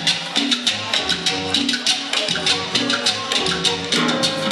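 Latin tropical dance music with a steady percussion beat and bass line, played over a sonidero sound system in a dance hall.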